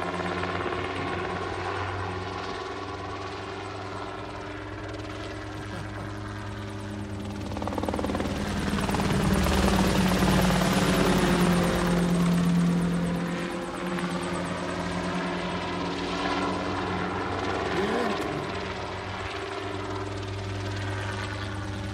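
CH-7 Charlie ultralight helicopter in flight: a steady rotor and engine drone that grows louder as it passes close overhead from about eight to thirteen seconds in, then eases back as it moves away.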